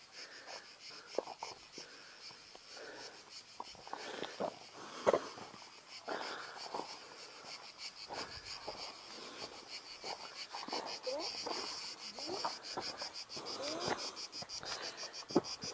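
Insects chirring in a high, fast-pulsing trill that grows louder after the middle. Under it, footsteps knock and scuff on a stony trail.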